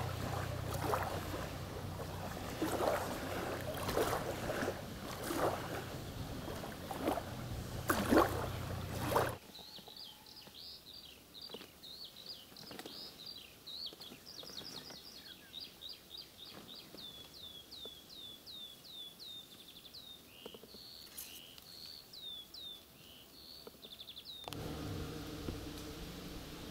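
Wind and small waves lapping at a reedy lake shore, with a splash every second or so. About nine seconds in it cuts to a quieter scene where a small bird calls a long run of short, high, down-slurred notes. Near the end a lower, steady noise returns.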